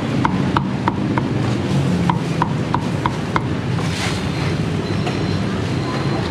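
Cleaver chopping roast pork on a thick wooden chopping block: quick, sharp knocks about three a second, with a short pause after about a second, stopping about three and a half seconds in. Beneath them runs the steady low rumble of street traffic.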